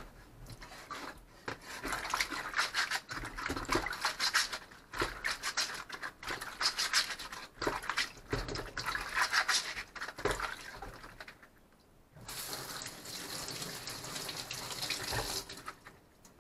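Korean melons being scrubbed and rolled by rubber-gloved hands in a basin of water: irregular splashing and sloshing. Near the end, for about three seconds, a steady rush of water from the tap as a melon is rinsed.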